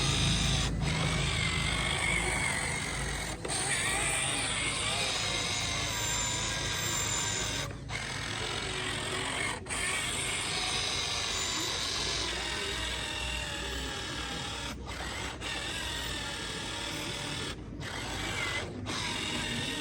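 Small electric motors and gearing of a radio-controlled model excavator whirring, the pitch rising and falling as the motors change speed, with several brief breaks.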